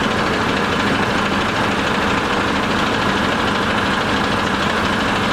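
Bus engine idling steadily while the bus stands still.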